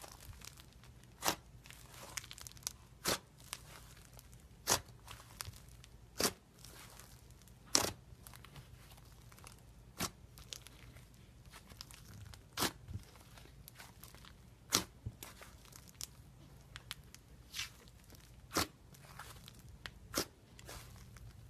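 Fluffy slime being stretched, folded and pressed by hand, giving a sharp pop or crack every couple of seconds with fainter crackling between. A faint low hum runs underneath.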